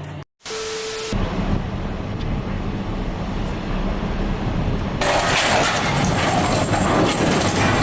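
Engine running with a steady low hum, broken by abrupt cuts: a brief dropout near the start, and a louder, noisier stretch from about five seconds in.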